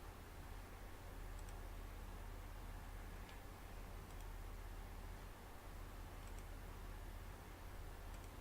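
Steady low hum and faint room noise, with a few faint, sharp clicks scattered through it: about a second and a half in, a little after three seconds, around four, around six, and near the end.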